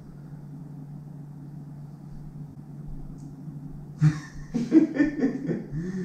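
A steady low hum, then about four seconds in, a short burst of people laughing.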